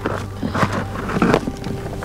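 Handling noise of old fishing rope and plastic rubbish being pushed into a plastic tub: a few short rustles and knocks, the loudest just over a second in, over a steady low hum.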